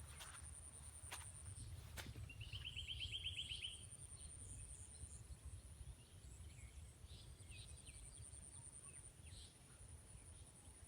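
Faint open-air ambience with a low rumble. About two seconds in, a bird gives one rapid trill of evenly spaced notes lasting about a second and a half, and a few faint chirps follow later.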